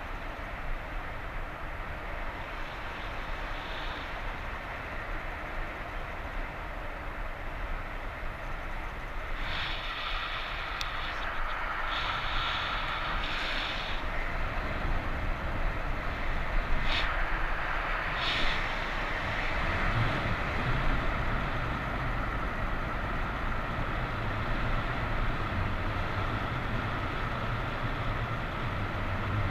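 Strong wind rushing over the microphone of a camera carried in paraglider flight, a steady roar that grows a little louder about a third of the way in, with a few brief, harsher gusts in the middle.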